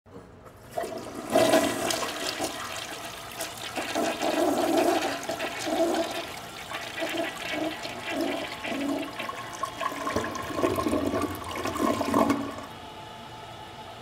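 A public restroom stall toilet flushing. A loud rush of water starts about a second in, with repeated gurgling surges, and cuts off sharply a little before the end, leaving a steady hiss.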